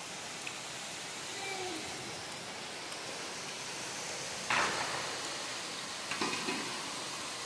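Heavy rain falling: a steady hiss. About halfway through there is a sudden short thump, with a few smaller knocks a little later.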